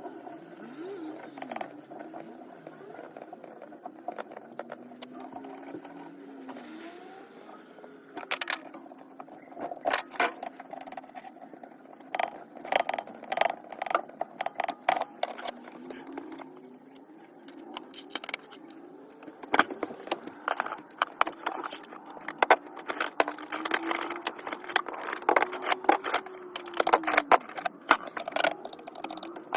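Irregular clattering, clicking and scraping of small metal parts and tools being handled, with a faint tone slowly rising and falling underneath.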